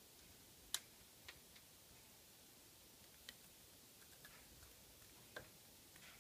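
Great spotted woodpecker's beak tapping a birch log: about half a dozen faint, scattered taps, the sharpest about a second in.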